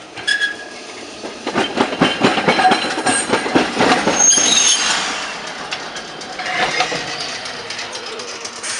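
Vintage Montreal streetcar, car 1959, passing close by: its steel wheels clack in a quick run over the rail joints and road crossing, loudest about two to five seconds in, with a brief high wheel squeal around four seconds. The sound then eases to a softer rolling rumble as the car moves on.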